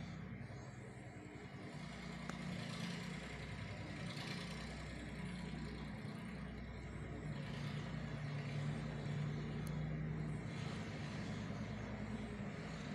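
Low, steady hum of a running motor, getting a little louder after the first couple of seconds.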